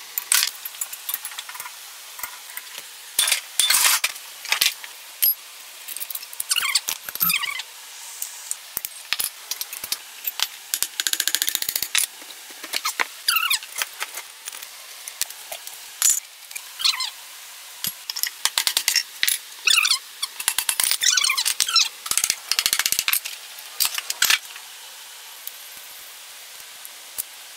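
Metal clinks, knocks and squeaky scrapes of hand tools and steel parts as an old diesel engine is taken apart: tools on bolts, parts handled and set down on the housing and timing gears. The sounds come at irregular moments, with a longer scrape about a third of the way in.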